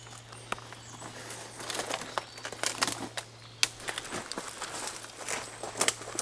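Footsteps through dense marsh undergrowth: irregular rustling of grass and stems, with many sharp crackles and snaps of twigs underfoot.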